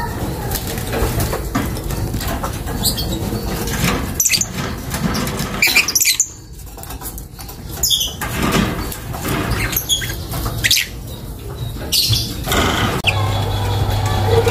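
A lovebird flapping its wings in a wire cage, in short repeated flurries, with brief high squeaks among them.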